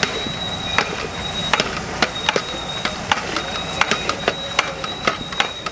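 A long metal ladle knocking and scraping against a large steel cooking pot as a big batch of chopped onions is stirred while frying in oil, over a steady hiss. The knocks come irregularly, several a second.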